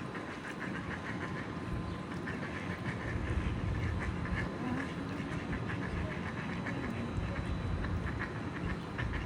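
Ducks quacking in quick runs of short calls over a low steady rumble.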